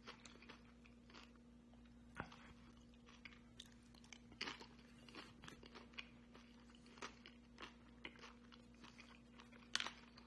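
A person chewing a mouthful of crisp tostada topped with fish ceviche. There are faint crunches and mouth clicks every half second to a second, with a louder crunch near the end, over a low steady hum.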